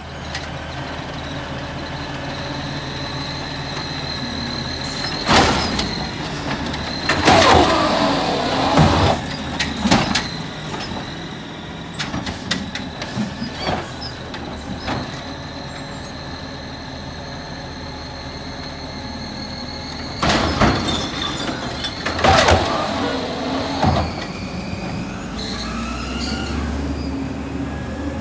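Natural-gas automated side-loader garbage truck running, with a steady high whine, while its arm lifts and dumps curbside carts; loud clanks and bangs of the carts and arm come in two clusters. Near the end its engine rumble rises as it drives off.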